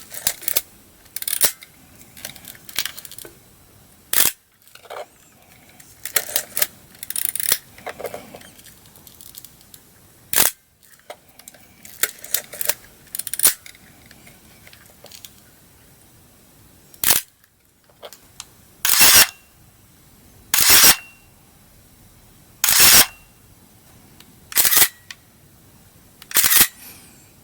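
Pentax SLR camera shutters being fired again and again, each release a sharp mechanical clack. In the first half the clicks come irregularly, mixed with smaller handling clicks; in the second half single loud releases come about every two seconds.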